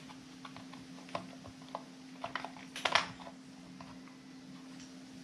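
Light clicks and taps of metal Torx bit sockets being handled and lifted out of their plastic storage case, the loudest cluster about three seconds in, over a steady low hum.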